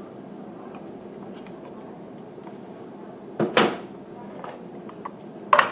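Clear plastic baseball display cubes being handled and set down on a wooden table: a short clatter about three and a half seconds in and a sharp knock near the end, over faint room hiss.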